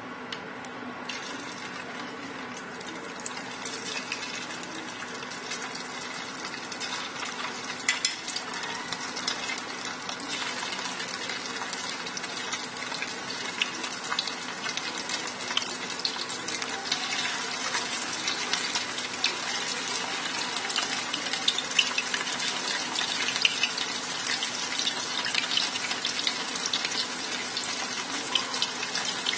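Coated chicken breast pieces frying in hot oil in a frying pan: a steady sizzle with scattered sharp crackles and pops, slowly growing louder as more pieces go into the oil.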